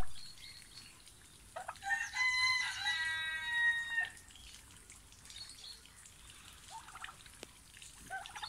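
One loud call from domestic fowl, starting about one and a half seconds in and lasting about two and a half seconds: a warbling start, then a held note. A few faint short calls follow near the end.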